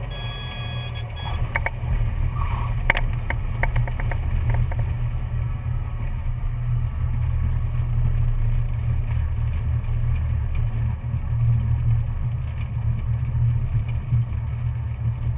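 Cessna 182 single-engine propeller plane's piston engine running steadily with a deep, low drone. A few brief clicks and rattles come in the first few seconds.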